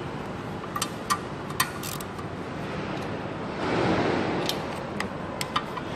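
Scattered light metallic clicks and clinks of tools and parts being handled at an engine's flywheel, several around a second or two in and a few more near the end, with a short rustle in between, over steady background hiss.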